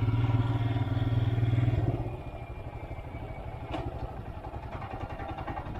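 Royal Enfield Himalayan's 411 cc single-cylinder engine running while riding, steady for about two seconds, then the throttle eases off and it drops to a quieter, evenly pulsing beat.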